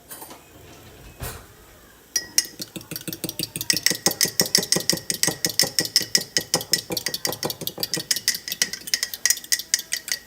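Eggs being beaten with a utensil inside a glass mason jar: rapid, even clinking against the glass, about seven strikes a second, starting about two seconds in.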